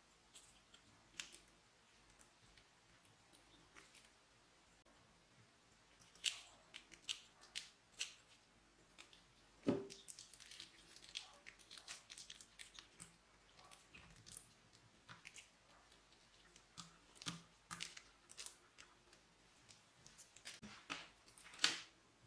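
Scissors snipping the tip off a plastic piping bag, then the bag crinkling and crackling as it is squeezed out, in scattered small clicks with a soft thud about ten seconds in.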